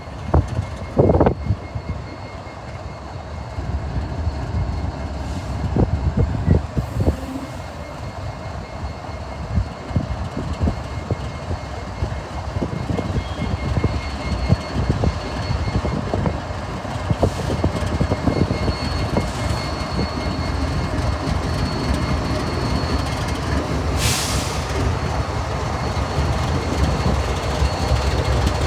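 Diesel freight locomotives running as the train passes close by, a low rumble that grows steadily louder as the units draw near, with a thin steady high whine above it and a brief hiss near the end.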